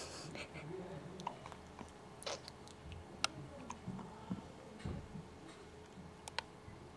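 A quiet small room with a few faint, irregular small clicks and a soft low thud about five seconds in.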